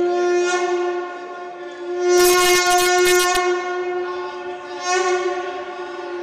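A single steady horn-like tone held throughout, brightening twice, with a burst of rapid clattering from a little over two seconds in that lasts about a second.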